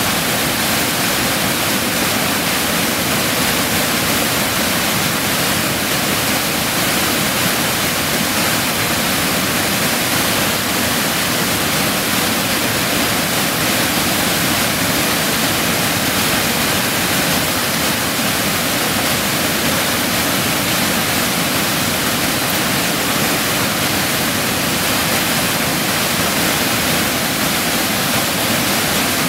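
Waterfall: white water pouring over rock ledges and crashing close by, a steady, loud rush with no let-up.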